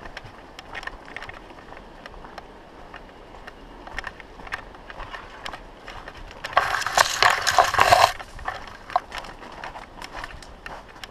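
Mountain bike rolling over a dirt and gravel trail, with scattered clicks and rattles. About six and a half seconds in comes a loud burst of rustling and snapping for about a second and a half, as the bike pushes through overhanging conifer branches.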